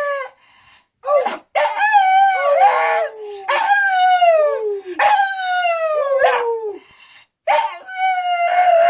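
Dog 'talking': a string of long, howling calls, about four of them after a couple of short ones, each sliding down in pitch.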